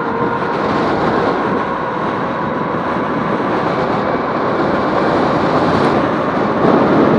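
Steady rushing wind and road noise while riding an electric bike with a trailer, growing a little louder toward the end.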